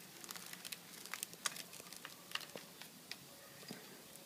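Faint scattered clicks and rustling of a wiring harness, its braided sleeve and plastic connectors being handled and routed by hand.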